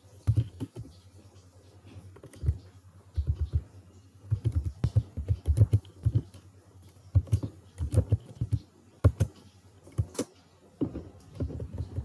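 Computer keyboard typing in irregular bursts of keystrokes, with short pauses between the bursts.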